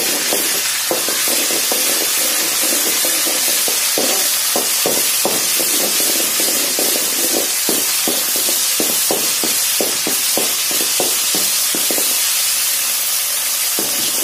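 Ginger-garlic paste sizzling in hot oil in a metal kadai over a high flame, frying off its raw smell, while a metal ladle stirs and scrapes it against the pan bottom in quick, irregular strokes.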